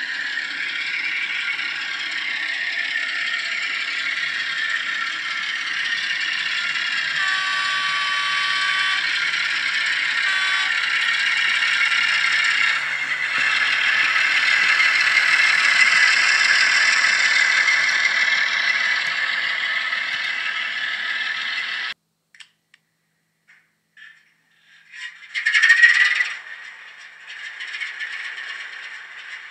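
Heljan Class 11 model shunter running with wagons, its ESU LokSound decoder playing a Class 08 diesel shunter sound file through a small speaker, mixed with the rattle of the model's wheels and mechanism on the track. The sound cuts off suddenly about two-thirds of the way through, followed by a short loud burst and quieter running near the end.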